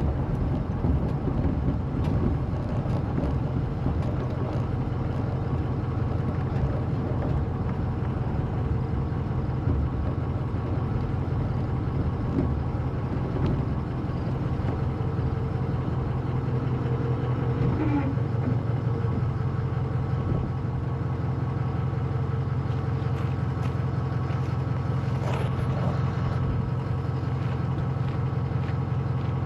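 Steady low drone of a running vehicle engine, holding an even level throughout.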